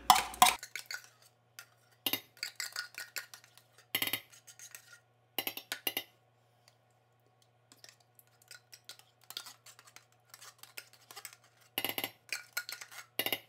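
A metal spoon clinking and scraping against a tin can and a stainless steel pan as thick canned cream of mushroom soup is scooped out onto pasta. The clinks come in scattered clusters with a quiet stretch in the middle, over a faint steady low hum.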